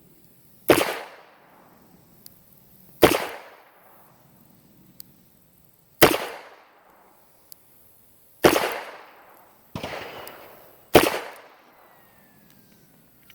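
Ruger Speed Six 2-inch-barrel revolver firing, five loud shots roughly two to three seconds apart, each ringing out briefly. A quieter bang falls between the fourth and fifth shots.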